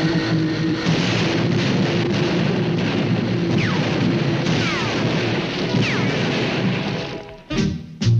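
Cartoon soundtrack: a loud, continuous rushing clatter of sound effects under orchestral music, with sliding whistle-like tones in the middle. It breaks off near the end into a few separate percussive hits.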